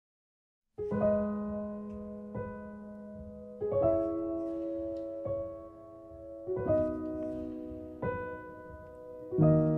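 Background music of piano chords, starting about a second in, with a new chord struck about every second and a half and left to ring.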